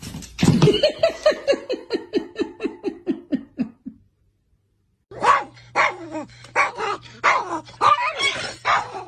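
A rapid run of short yipping calls, about five a second, slowly sinking in pitch, then after a gap of about a second a small dog's irregular barks and yelps.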